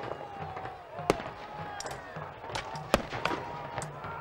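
Black-powder muskets firing in a re-enacted battle: two loud sharp reports, about a second in and near three seconds in, with scattered fainter shots in between.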